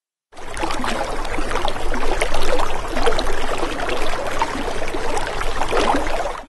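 Water trickling and gurgling: a steady wash of small splashes and bubbly plinks. It starts abruptly just after the beginning and cuts off suddenly at the end.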